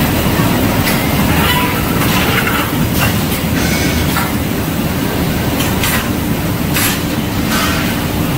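Steady loud drone of running factory machinery with a low hum, broken by several short metallic clanks as steel coil springs are loaded into and taken out of a scragging press cage and handled.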